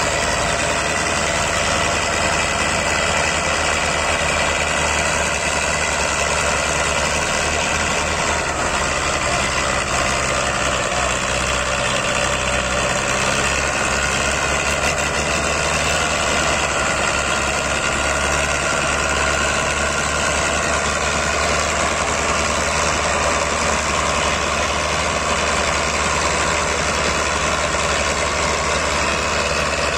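Two diesel farm tractors running hard together, a steady engine drone whose pitch wavers a little as they labour. They are straining to pull a combine harvester on a trailer through soft sand, rear wheels slipping and throwing dust.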